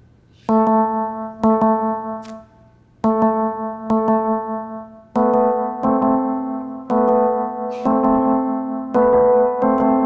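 Electric piano playing a slow run of held chords, struck about once a second, the chord shifting a little higher about halfway through: a musical rendering of Mediterranean migration-route data.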